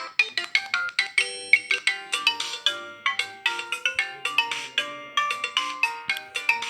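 Alcatel OT-3026X mobile phone playing a polyphonic ringtone: a quick, bright melody of short xylophone-like notes, several a second.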